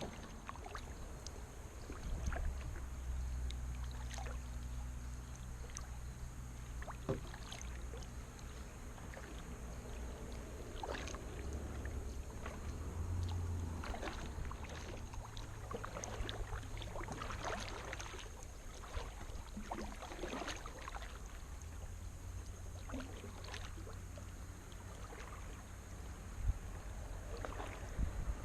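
Kayak paddle strokes: the blades dipping and splashing in the water at an irregular pace, with drips between strokes, over a low steady rumble.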